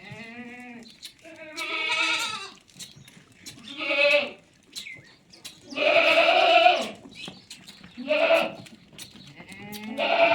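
Goats bleating repeatedly, about six separate wavering calls. The loudest and longest comes about six seconds in.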